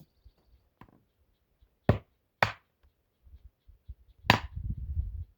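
A felling wedge being struck three times, driven into the back cut to tip over a tree that sat back on an uneven back cut. The first two blows come about half a second apart. The third comes about two seconds later and is followed by about a second of low rumbling.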